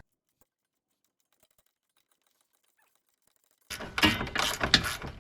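Dead silence for the first three and a half seconds, then a quick run of clicks and metallic clinks with a little ringing: tools and parts being handled during work on a car's front end.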